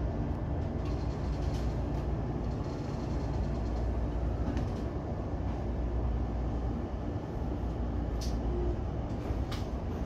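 JR E233-1000 series electric train running between stations: a steady rumble with a low hum, and a few sharp clicks near the end.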